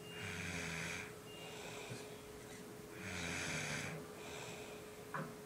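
A teenage boy snoring in deep, medicine-induced sleep: two snores about three seconds apart, each about a second long, a low buzzing rattle with a breathy hiss.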